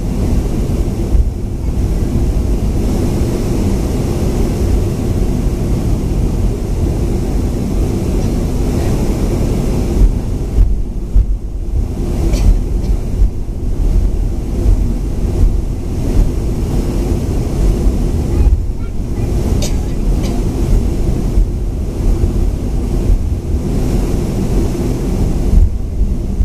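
Cabin noise inside a Boeing 737-500 taxiing: a steady low rumble and hum from its CFM56-3 turbofan engines and the airframe. From about ten seconds in, irregular louder bumps break into the rumble.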